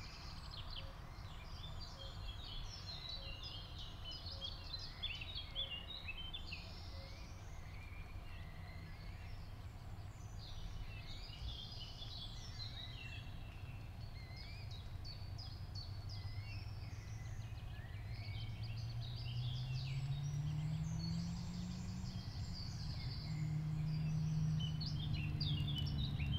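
Birds chirping and twittering continuously over a steady low outdoor rumble. From about two-thirds of the way in, a low hum rises slowly in pitch and grows louder toward the end.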